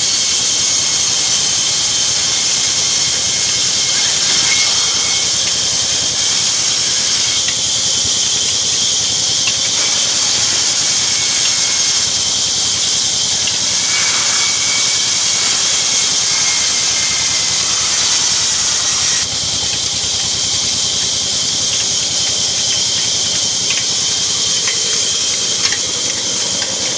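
Large wood band saw running and ripping a log lengthwise: a loud, steady high hiss of the blade cutting through the wood, with a faint whine that comes and goes.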